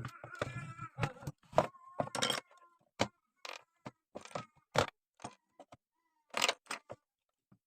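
Irregular clicks and light metallic clinks, about a dozen, some leaving a brief ringing tone.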